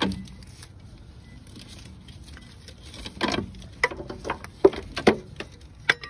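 Brake parts and hand tools being handled at the caliper. There is a knock at the start, then a brief rustle about three seconds in, followed by a scatter of sharp clicks and knocks.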